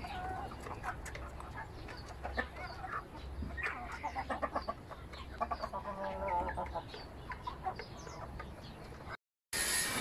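A flock of domestic chickens clucking, many short overlapping calls, busiest in the middle, with a brief dropout near the end.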